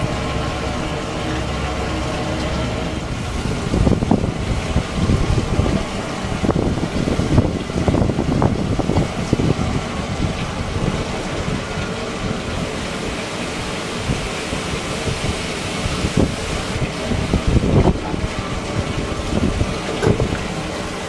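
Wind buffeting the microphone in irregular low rumbling gusts. A steady hum sits under it for the first few seconds.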